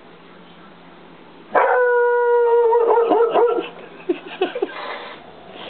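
English springer spaniel howling: a single steady howl starts about a second and a half in and, after about a second, breaks into a string of short yips and barks that die away.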